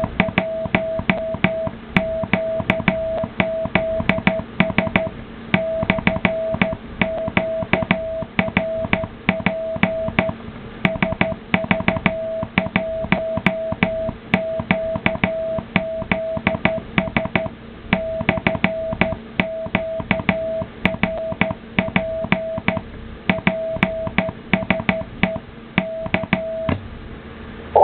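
Morse code CQ call sent by hand: a steady single-pitch sidetone beeps in dots and dashes with a sharp click from the Morse key at each element, over a faint low hum. The sending stops about a second before the end.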